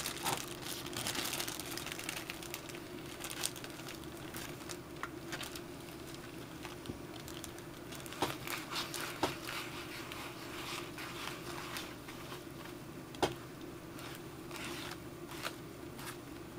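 A thin plastic bag worn over a hand crinkling in small, irregular crackles as it rubs oil dye into leather, with a few sharper clicks.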